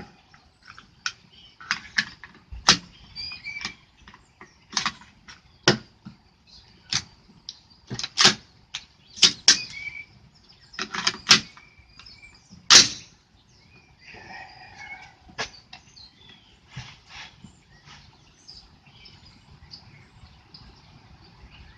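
An irregular series of sharp clicks and knocks, about fifteen over the first fourteen seconds, the loudest near the middle, then quieter with faint bird chirps.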